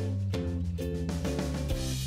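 Background music: a plucked guitar playing a repeated chord pattern about twice a second over a bass line, with drums coming in.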